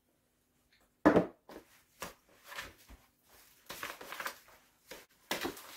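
Wooden spoon stirring a wet mix of grated sweet potato and coconut in a plastic mixing bowl: a thump about a second in, then irregular short stirring and scraping strokes.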